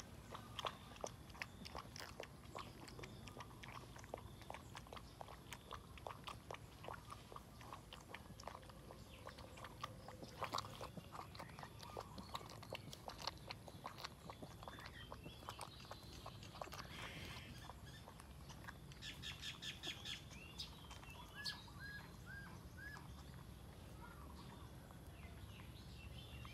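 Puppy eating from a ceramic bowl: a faint, steady run of small clicks and smacks from its mouth working the food and knocking the bowl.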